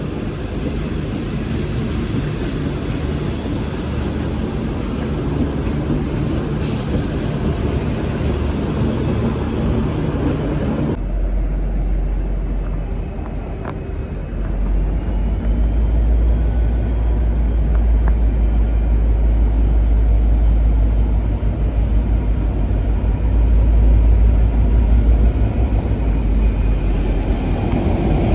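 V/Line N-class diesel-electric locomotive running, a continuous deep engine rumble. About a third of the way through, the sound changes abruptly to a heavier, louder low rumble with a thin high whine that rises, holds, and falls away near the end.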